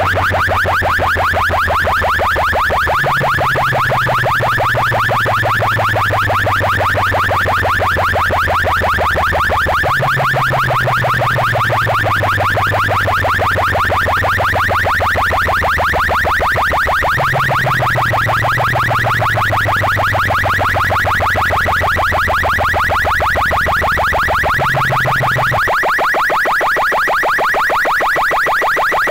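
A test tone played at full volume through a stack of horn loudspeakers on a sound-system cart: a rapidly pulsing, alarm-like high 'wah-wah' tone, over a deep bass tone that shifts pitch every few seconds and drops out a few seconds before the end.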